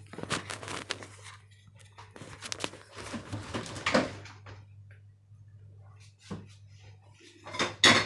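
Clicks, knocks and rustles of a camera being handled and set in place during the first half, then a loud clatter near the end as a wooden spatula knocks in a stainless steel wok. A steady low hum lies under it all.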